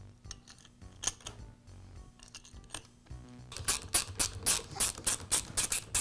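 Hex driver turning the screws that hold the cap on a Bostitch roofing nailer: a few scattered light clicks, then from about three and a half seconds in a quick even clicking, about six a second, as the screws are driven home.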